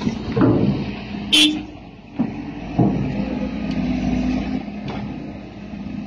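Excavator's diesel engine running steadily at work, with a short burst of hiss about a second and a half in and a couple of knocks a little after two seconds.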